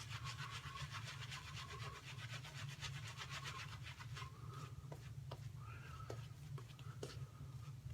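Boar-bristle shaving brush scrubbing shave cream lather on the face, a fast rhythmic bristle rubbing of about seven or eight strokes a second that slows about halfway through into a few soft wet clicks. The brush is working freshly added water into the lather to hydrate it.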